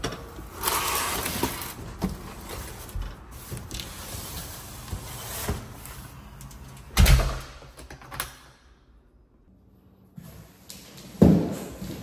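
A large cardboard box being picked up and carried, with scraping and handling noise. There is a heavy thud about seven seconds in and another near the end.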